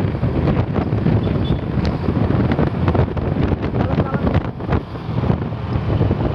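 Heavy wind buffeting the microphone over a low vehicle rumble, with no horn sounding.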